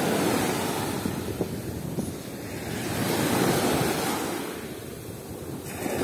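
Small foamy waves of the Sea of Azov washing up a sandy beach and drawing back, the surf swelling about three seconds in, fading, then rising again with the next wave near the end. Wind buffets the microphone throughout.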